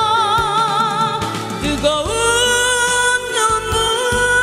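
A woman sings a Korean song into a handheld microphone over instrumental accompaniment. She holds a note with wide vibrato, then slides up about two seconds in to a long sustained note.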